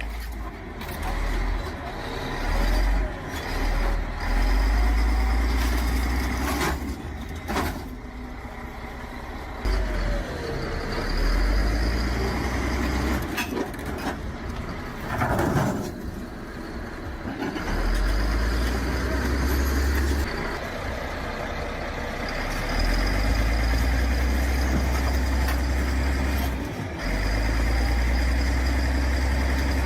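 Heavy machinery engine running under load, a deep rumble that swells and eases off several times, with a few scattered knocks.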